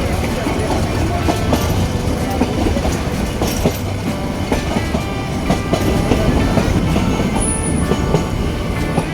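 Nilgiri Mountain Railway narrow-gauge train running, its wheels clattering over the rail joints with a steady rumble and many sharp clicks.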